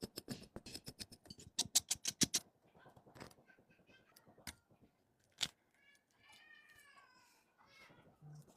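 A quick run of sharp clicks and taps for the first two and a half seconds, and one loud click about five and a half seconds in. Then comes a high, wavering animal call lasting about a second and a half.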